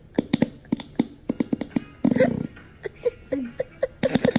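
A baby blowing raspberries with the lips: a quick run of short sputtering pops, broken by a few brief voiced baby sounds.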